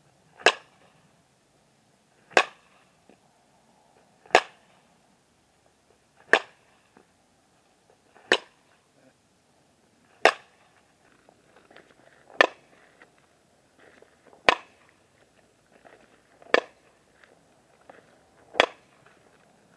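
Fastpitch softball bat striking pitched balls: ten sharp cracks, one about every two seconds, each with a brief ring.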